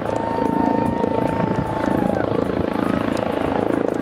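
Steady low mechanical drone with a fast regular beating in the bass. A thin faint tone sounds over the first couple of seconds.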